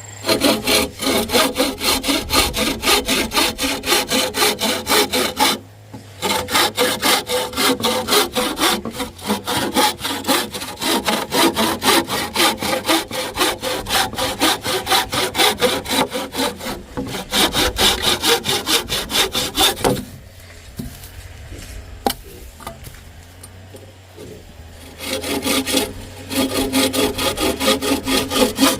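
Hand saw cutting wood in quick, steady back-and-forth strokes. It stops briefly just before six seconds in, pauses for several seconds past the middle, then starts again.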